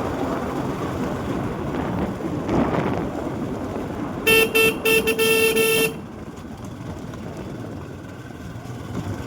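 A vehicle horn honking: a few quick toots and then a longer blast, about four seconds in and lasting about a second and a half, over the steady wind and engine noise of a motorcycle on the move.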